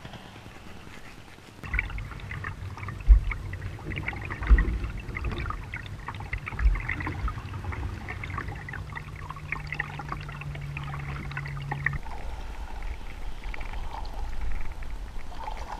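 Water splashing and trickling around a kayak, starting about two seconds in, with a few low thumps in the first seven seconds.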